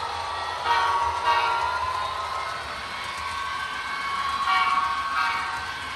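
HO-scale model diesel locomotive's sound decoder sounding short horn blasts, two pairs of toots, over a steady pitched hum.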